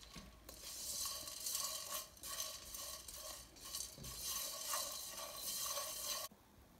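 A spatula stirring and scraping whole spices being dry-roasted around a nonstick wok, in repeated scraping strokes. The stirring cuts off suddenly near the end.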